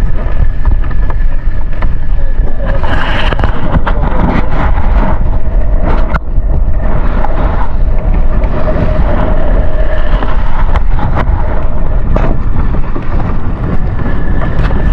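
Boat motor running steadily under way, with wind rumbling on the microphone and a few short knocks.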